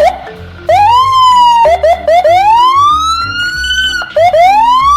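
Police siren wailing: one wail, then three quick short yelps, then two long rising wails, the last still climbing at the end. Background music with a steady beat plays underneath.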